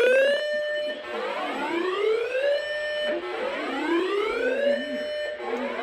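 Electronic whooping alarm siren: a tone sweeps upward in pitch for about a second and a half, holds briefly, then cuts off, and repeats about every two seconds.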